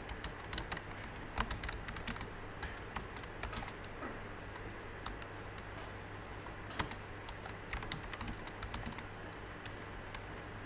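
Computer keyboard typing: quick, irregular keystrokes during a typing test, with a short lull midway and the keystrokes thinning out near the end.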